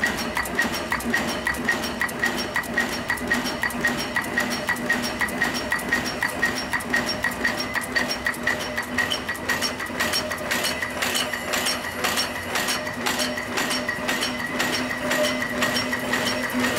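Sacma SP25/U four-die progressive cold header running, its transfer and tooling clattering in an even rhythm of about two strokes a second over a steady machine hum.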